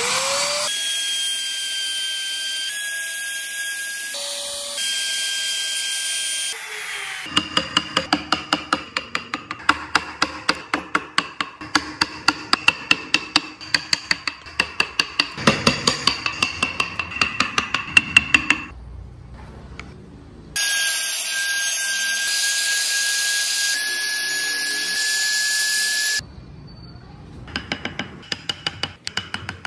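Handheld trim router running with a steady high whine as it cuts wood, in two spells of several seconds. Between and after them, a chisel is tapped into wood in quick, regular strokes, about three a second.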